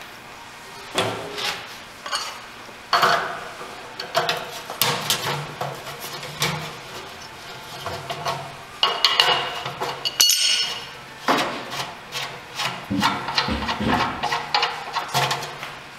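Irregular metal clunks and scraping from a Shimpo RK-2 pottery wheel's steel housing as its feet are loosened with a wrench and unscrewed by hand. A short high metallic ring sounds near the middle.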